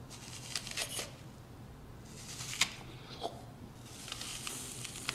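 Crisp crunching of teeth biting into a raw apple and chewing it, a series of sharp crunches with the loudest about two and a half seconds in, then softer crackling chewing near the end.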